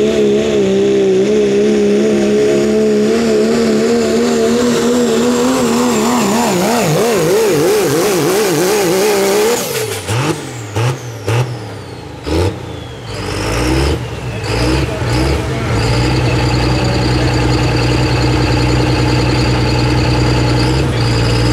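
Turbo-diesel Dodge Ram pulling truck at full throttle hauling the sled, its engine note wavering and then sinking in pitch as the sled's weight bogs it down. About ten seconds in the throttle comes off, a falling whistle winds down with a few short blips, and the engine settles into a steady idle.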